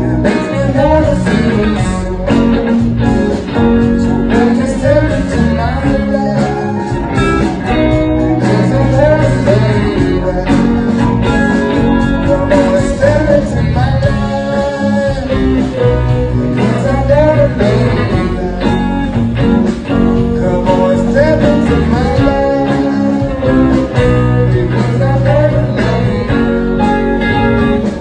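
A live blues band playing, with guitars and keyboard over a steady full-band backing.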